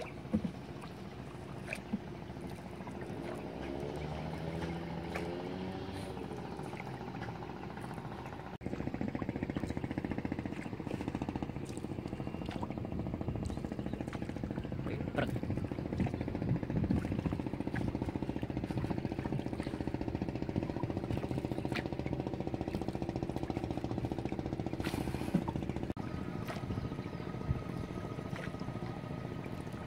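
Small boat's motor running steadily under way, with water and wind noise. Its pitch wavers a few seconds in, and it jumps louder about nine seconds in.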